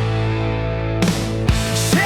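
Hard rock music with no vocals: a held guitar chord rings for about a second, then sharp drum hits come in.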